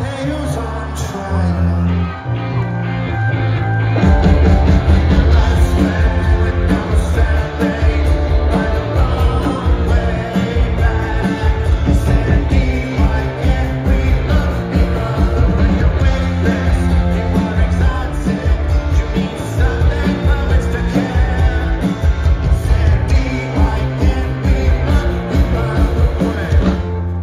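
Live rock band with a singer, played through a festival PA and heard from within the crowd: electric guitars, bass, keyboard and drums. A quieter opening gives way to the full band with steady drumming about four seconds in.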